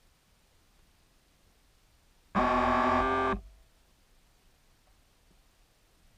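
Background music: one electronic keyboard chord about two seconds in, held for about a second and changing once partway through.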